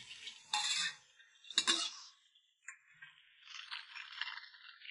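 Crisp food being bitten and chewed: a few sharp crunches in the first two seconds, then quieter, steadier crackling.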